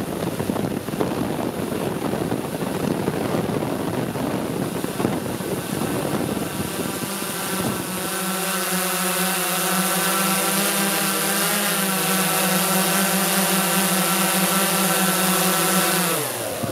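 Multicopter drone's electric motors and propellers heard through its own onboard camera. There is a rushing noise as it comes down. About halfway through, it settles into a steady hum of several tones as it hovers low. Just before the end, the pitch slides down as the motors spin down and stop.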